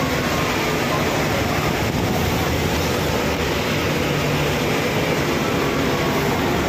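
Double-decker bus driving through a covered underpass, heard from the upper deck: a steady rumble of engine and road noise.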